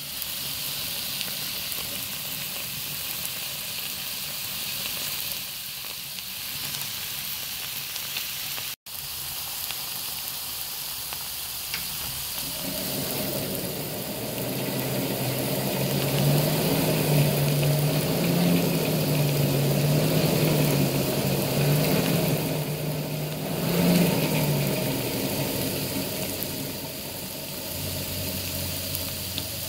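Hydrous borax sizzling and hissing steadily in a pan over a fire as it is cooked to drive off its water. From about twelve seconds in a low wavering hum joins for some twelve seconds, then fades.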